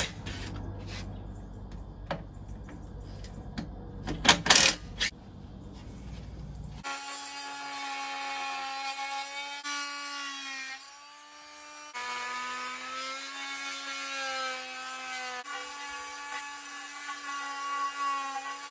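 Cordless drill at work on timber. A few sharp clacks come in the first five seconds. Then from about seven seconds in there is a long steady motor whine that shifts in pitch several times and eases off briefly around eleven seconds.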